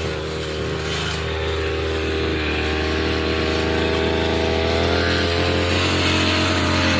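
Petrol brush cutter with nylon trimmer line running at working speed while cutting grass, its engine pitch rising gradually through the middle.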